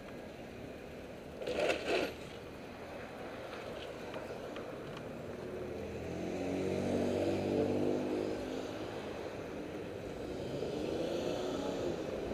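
City street traffic: a passing vehicle's engine drones, loudest about seven to eight seconds in, over a steady wash of traffic noise. A brief double noise sounds about two seconds in.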